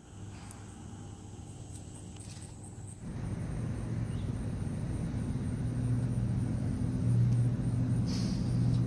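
A low, steady mechanical hum that becomes louder after about three seconds, with a short scraping sound near the end as the valve cover is lifted off the cylinder head.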